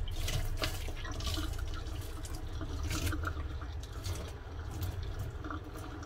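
Water trickling and splashing in a kitchen sink over a large grass carp, which is being doused with water from the kettle to loosen its scales before scaling, with irregular small drips and splashes.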